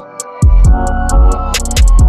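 Electronic background music with deep, pitch-dropping bass drum hits, regular hi-hat ticks and sustained synth tones. The bass drops out at the start and comes back about half a second in.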